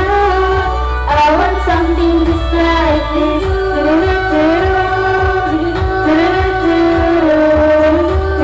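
Girls' choir singing a melody together, amplified through stage microphones and loudspeakers.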